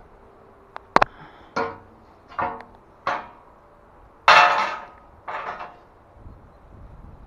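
Metal HAKI scaffold parts knocking and clanking together, several strikes with a short metallic ring, a sharp knock about a second in, and a louder, longer clatter a little past halfway.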